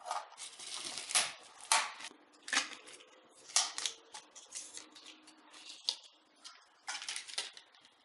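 Stiff clear plastic packaging of a desktop RAM module crackling and rustling in irregular bursts as the stick is handled and taken out.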